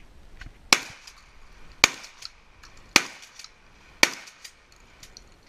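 Ithaca Model 37 12-gauge pump-action shotgun fired four times in quick succession, the shots evenly spaced about a second apart.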